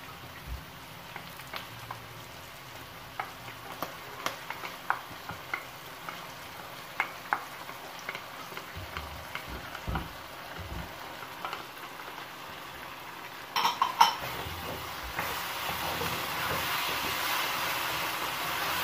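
Wooden spatula stirring and scraping chicken and vegetables stir-frying in a metal karahi, with a soft sizzle and scattered light taps against the pan. A sharp clatter a little past two-thirds through, then the sizzle grows louder for the last few seconds.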